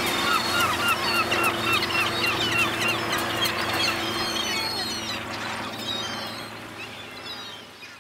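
Seagulls calling, a run of repeated yelping calls at about two a second, with fainter calls behind, fading out over the last few seconds.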